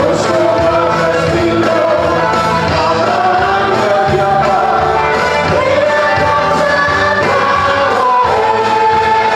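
A large congregation singing a worship song together with instrumental accompaniment, loud and continuous.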